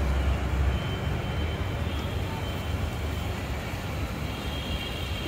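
Steady outdoor urban background noise of road traffic, with a low rumble that is heaviest in the first second.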